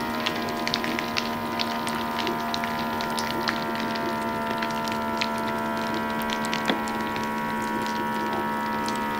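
Vacuum sealer's pump motor running with a steady hum, drawing the air out of a plastic food bag, with faint scattered ticks over it.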